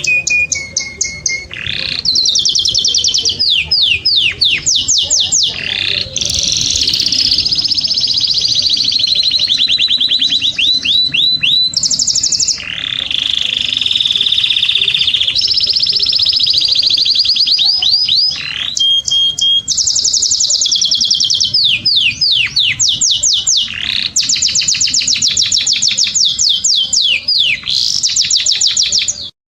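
Domestic canary singing a long, loud, continuous song of rapid trills: fast runs of sweeping notes alternate with held rolling phrases. The song cuts off abruptly near the end.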